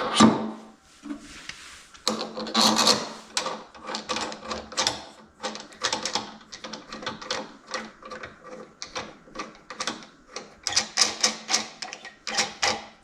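A steel drawbar sliding and scraping through a lathe's hollow headstock spindle as it is threaded into the back of a Jacob's chuck, making rapid, irregular metallic clicks and rasps.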